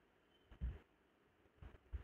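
Near silence, with two faint, brief low thumps: one about half a second in and another near the end.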